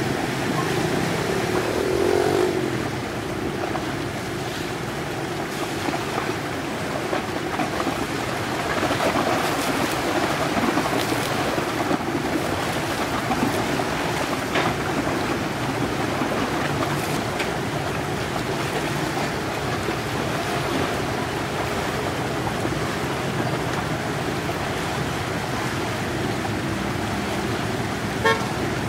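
Small passenger ferry under way, its engine droning steadily beneath the rush and splash of its bow wave washing along the hull, with some wind on the microphone. A brief clicking comes near the end.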